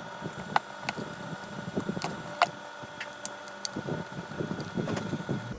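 Scattered sharp clicks and light taps, about seven over five seconds, from handling work on a circuit board as the amplifier ICs are about to be desoldered. A faint steady high whine runs underneath.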